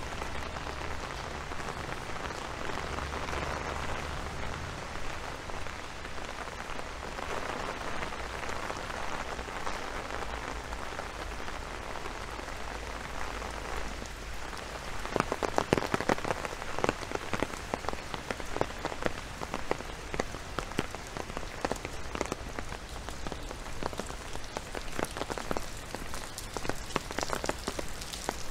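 Rain falling steadily. From about halfway in, large drops land close by in a quick, uneven run of sharp taps, louder than the rain behind them.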